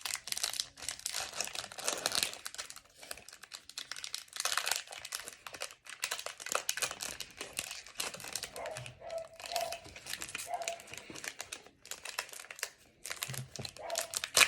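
Foil trading-card pack wrapper crinkling and tearing as it is handled and opened, in irregular crackly bursts.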